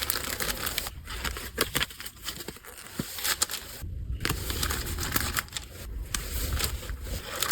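Packaging crinkling and rustling as it is handled, with many small crackles and clicks.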